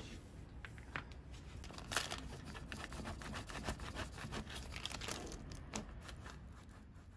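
A plastic scraper is pushed along a filled plastic piping bag on parchment paper: a rapid run of small crinkles and scrapes from the plastic bag and paper, with a sharper knock about two seconds in.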